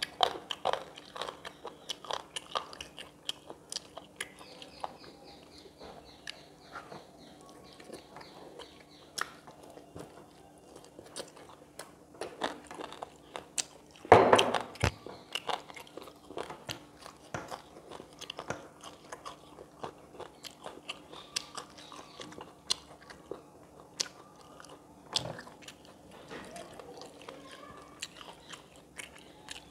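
Close-miked eating: a person biting, crunching and chewing food, with many short sharp mouth clicks and one louder crunch about halfway through.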